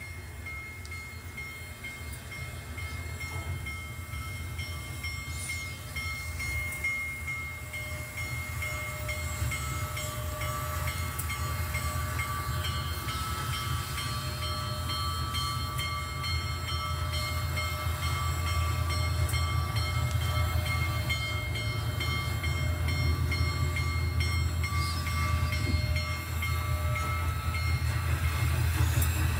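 HO-scale model Union Pacific Challenger steam locomotive running along the layout track: a steady low rumble that grows gradually louder, with faint steady high tones over it.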